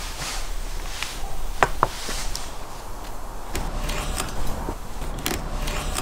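Kitchen knife cutting raw sturgeon on a wooden cutting board, the blade knocking on the board twice in quick succession about a second and a half in, followed by scattered lighter taps and clicks as the fish pieces are handled on the board.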